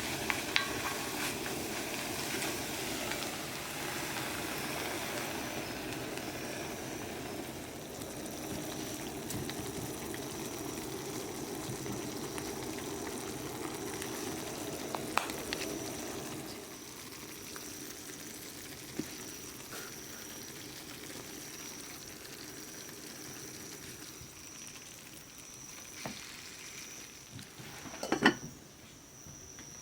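Food frying and sizzling in a pan, with scattered light clicks of a utensil. The sizzle eases a little past halfway, a thin steady high tone sounds over it, and a single sharp knock comes near the end.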